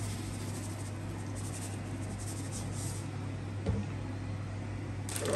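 Steady low hum, with a faint knock about three and a half seconds in and a few light clicks near the end.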